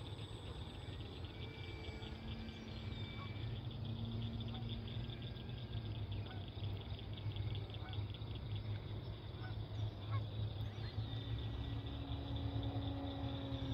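Insects chirping in a steady, fast-pulsing chorus over a low steady hum, with a few short tonal calls.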